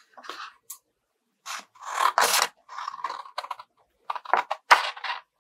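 Scissors cutting a sheet of cardboard in a string of short snips and scrapes, the loudest about two seconds in and near the end.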